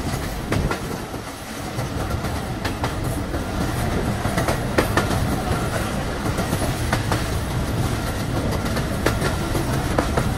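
Passenger train running along the track, heard from on board: a steady rumble with sharp clicks of the wheels over rail joints every couple of seconds.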